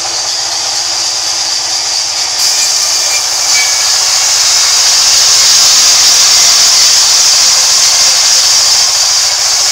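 Band sawmill blade cutting lengthwise through a timber beam: a steady, loud, high-pitched hiss over the faint hum of the saw's drive. The hiss grows louder about two and a half seconds in.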